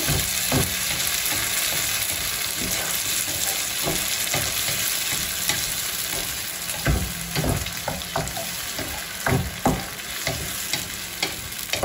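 Tomato and garlic purée sizzling and spattering in a very hot frying pan over fried onions, stirred with a wooden spatula, with a steady hiss and scattered sharp knocks and pops, more of them in the second half. The spattering comes from the pan being too hot for the wet sauce.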